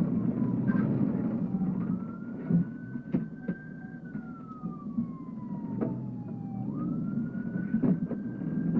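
Police siren on a slow wail, its pitch falling gradually and then jumping back up twice, over the low rumble of the vehicle's engine and road noise. Several short sharp cracks cut in along the way.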